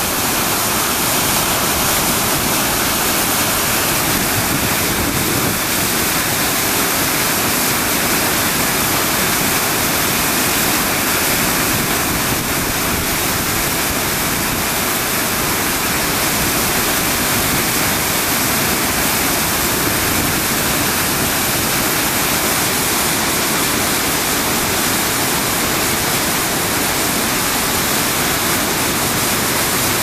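Wide river waterfall pouring into its churning plunge pool: a loud, steady rush of falling water.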